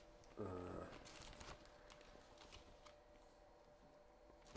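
Near silence. About half a second in there is a brief low vocal hum, then faint rustling of paper sheets being handled.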